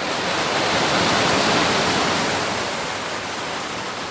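Heavy rain pouring down, a dense steady hiss that swells a little in the first second and a half, then eases slightly.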